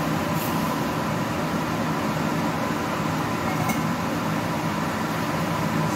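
Steady hum of a running fan, with a few faint light clicks.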